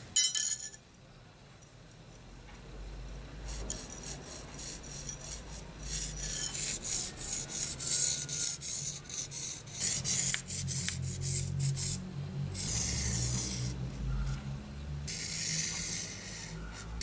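Felt-tip marker drawing lines along a flat 52100 bearing-steel knife blank: a scratchy rubbing in stretches of several quick strokes. There is a brief clatter at the very start.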